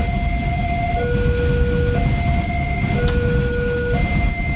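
Level-crossing alarm from the loudspeaker on the crossing signal, sounding a two-tone warning that switches between a higher and a lower tone about once a second. Underneath it runs the low rumble of a container freight train passing over the crossing.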